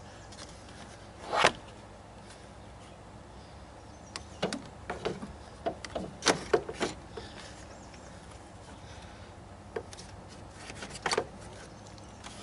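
Hard knocks and clatter of a 2012 Chevy Cruze's radiator cooling fan and shroud assembly being handled and worked down into the engine bay: one sharp knock about a second and a half in, a run of knocks between about four and seven seconds, and a couple more near the end.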